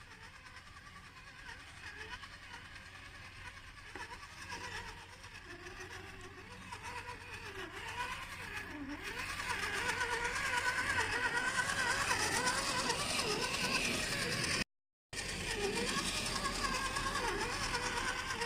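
Radio-controlled scale crawler's electric motor and gear drivetrain whining, the pitch rising and falling with the throttle. It grows louder from about halfway through and cuts out for a moment near the end.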